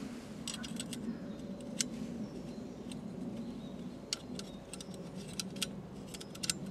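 Small, sharp, irregular clicks and taps as a Jetboil pot-support stand is handled and fitted onto the stove, some coming in quick clusters, over a faint steady low hum.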